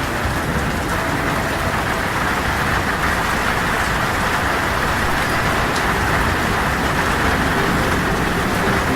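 Heavy rain falling steadily, a dense even hiss with a low rumble underneath.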